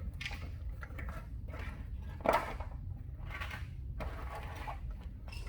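Hand tools and clutter being rummaged through and handled: scattered small knocks and rustles, with one louder clatter about two seconds in, over a steady low hum.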